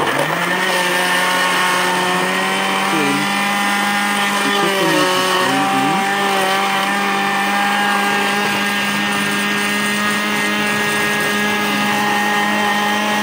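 Countertop blender running steadily at high speed, grinding chopped coconut pieces with a little water into coconut milk. Its pitch wavers briefly about four to six seconds in.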